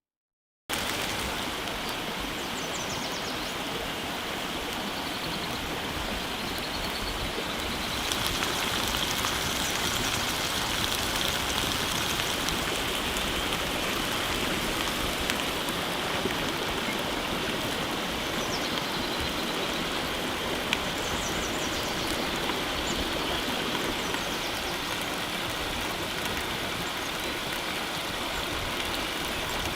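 Beef rendang sizzling steadily in the pan, an even hiss that grows a little louder about eight seconds in.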